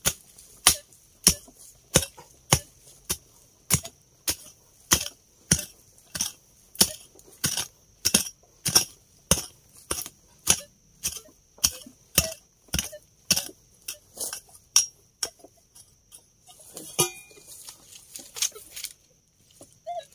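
Digging tool chopping into hard ground at a metal detector signal: an even run of sharp strikes, nearly two a second, stopping shortly before the end.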